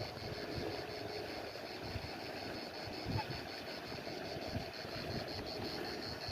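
Outdoor ambience: low, uneven rumbling of wind on the microphone, with a steady, rapid high-pitched pulsing throughout.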